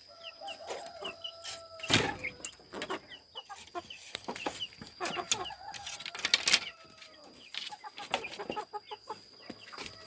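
Bangkok game chickens clucking and calling, with many short high peeps and two drawn-out calls, one near the start and one a little past the middle. A few sharp knocks or rustles cut in, the loudest about two seconds in.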